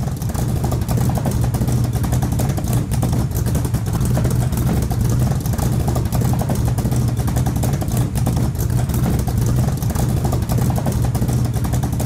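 A loud motor-vehicle engine running at a steady pitch with a rapid, even firing pulse.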